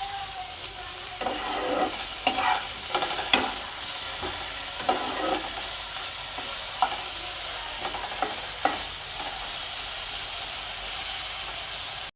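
Chopped tomato and onion frying with salt in mustard oil in a kadai: a steady sizzle, with a spatula scraping and knocking against the pan, often in the first few seconds and only now and then after.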